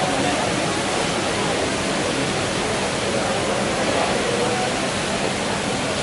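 Display fountain jets spraying and splashing back into the pool: a steady rushing of water.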